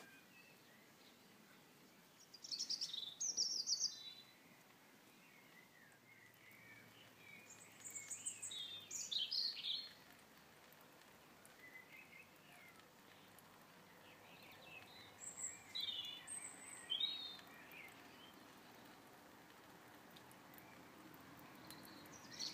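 Garden songbirds singing in bursts of rapid, high-pitched chirping phrases a few seconds apart, with softer chirps in between, over faint outdoor background noise.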